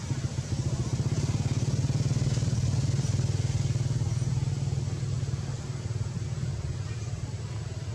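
A motor engine running, with a fast low pulsing. It swells about a second in and fades toward the end.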